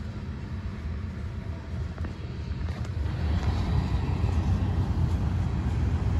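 Freight train's covered hopper cars rolling slowly past, a steady low rumble of wheels on rail, heard from inside a car. It grows somewhat louder about halfway through.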